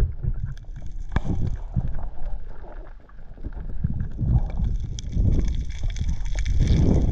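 Muffled underwater sound picked up through an action camera's waterproof housing as a diver swims: an uneven low rumble of moving water that swells and fades, with a few sharp clicks, the loudest about a second in.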